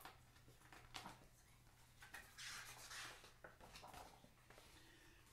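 Faint paper rustle of a picture book's page being turned, about two seconds in, with a few light clicks of handling before it.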